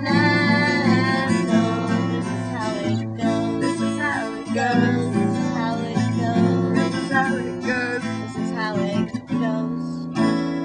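Acoustic guitar strummed in a steady pattern of chords; a last chord about ten seconds in is left ringing and fading.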